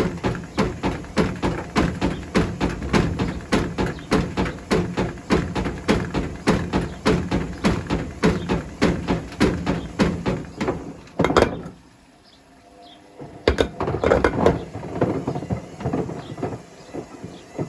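Bricks banging against the drum of a Hotpoint Smart Tech WMFUG742 washing machine as it turns, in an even run of loud knocks about three a second. The knocking stops abruptly about eleven seconds in when the machine is paused, and a few looser knocks follow.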